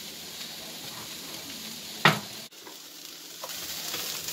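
Cauliflower, broccoli and onion sizzling gently in a non-stick frying pan over low-to-medium heat, with one sharp knock about two seconds in. Toward the end a wooden spoon stirs through the vegetables and the sizzle grows louder.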